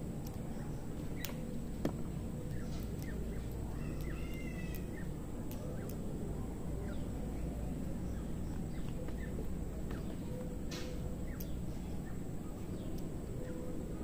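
Steady low outdoor background noise with birds calling, including a short chirping phrase about four seconds in, and a few faint sharp clicks scattered through.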